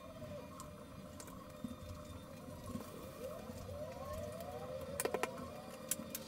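Handling noises over a low steady room hum: a run of short rising squeaks a little past the middle, then a few sharp clicks near the end as objects are set down on the countertop.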